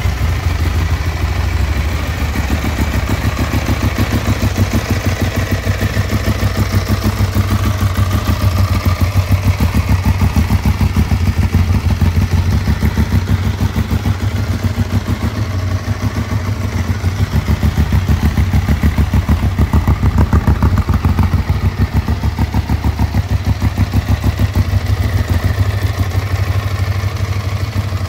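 Ducati 1198's 90-degree L-twin engine idling steadily, with a fast, even pulsing beat.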